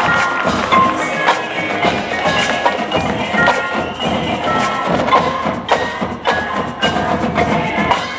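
Marching band playing its competition show in a percussion-led passage: ringing mallet-percussion notes over frequent sharp wood-block clicks.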